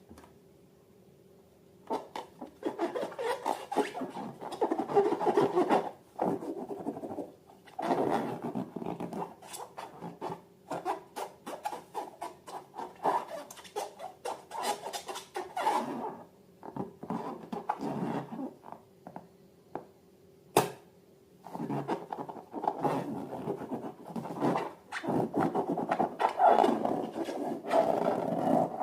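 Balloons and slime being handled: uneven bursts of rubbing and scraping, each a second to a few seconds long, with short pauses between them and one sharp click about two-thirds of the way through.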